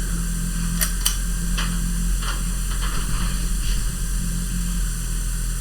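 Hunter Builder Plus ceiling fan running on high speed: a steady motor hum with air noise. Two sharp clicks about a second in, with a few fainter ticks after.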